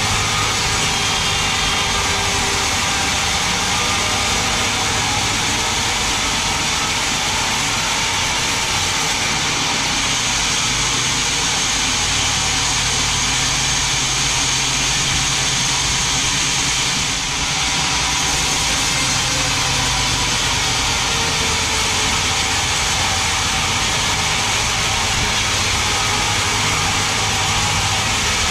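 Band sawmill cutting lengthwise through a very large mahogany log: a steady, loud hiss of the blade through the wood over the low hum of the machine, dipping slightly once a little past the middle.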